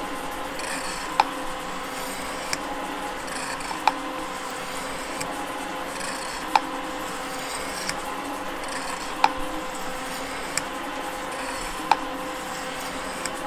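Gould & Eberhardt metal shaper running, its drive humming steadily as the ram strokes back and forth cutting a metal block. A sharp click comes once each cycle, about every two and a half seconds, with a softer click halfway between.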